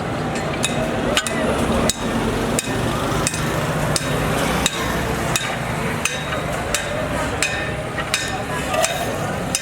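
Hammer striking metal in a steady rhythm, about three blows every two seconds, over a steady low hum.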